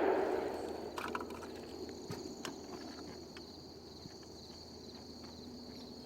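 The echo of a 12-gauge shotgun blast dies away over the first second or so. After it, steady high-pitched insect chirring carries on with a few faint clicks.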